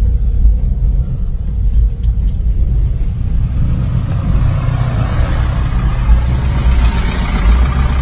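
Low, steady rumble of a car driving slowly over a rough dirt track, heard from inside the cabin. A louder hiss joins about four seconds in.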